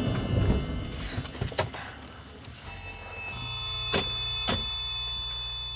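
A car's starter motor cranks without the engine catching, with a few sharp clicks. Suspense music drones underneath: a steady low hum from about halfway through and high sustained tones. The car has failed to start.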